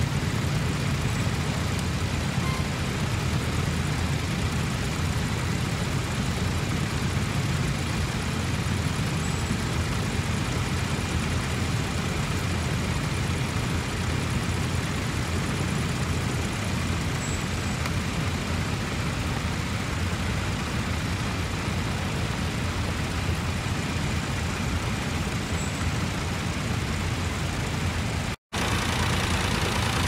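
Vintage tractor engine running steadily as it pulls a plough. The sound drops out for a moment near the end, then another tractor engine comes in.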